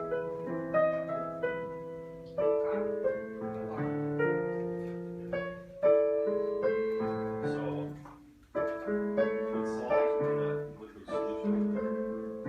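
Background piano music: a slow melody of struck notes over lower chords, each note ringing out and fading, with a brief gap about two thirds of the way through.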